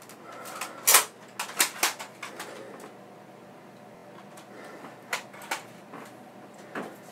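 Sharp plastic clicks and knocks from a Nerf blaster being worked and fired at plastic knockdown targets: a quick run of five or six clicks starting about a second in, the first the loudest, and a few more spaced out near the end.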